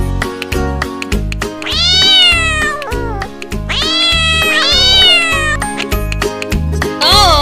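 Domestic cat meowing three times, one long meow followed by two in quick succession, over upbeat background music with a steady beat. A short, higher call comes near the end.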